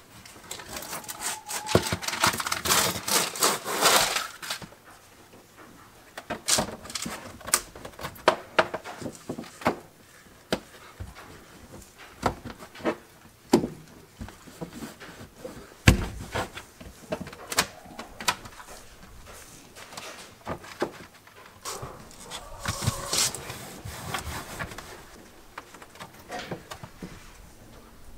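Hands laying self-stick vinyl floor tiles in a small foil-lined box: the backing paper rustles as it is peeled and handled, with scattered clicks and taps as tiles are set down and pressed, and a sharp knock about sixteen seconds in.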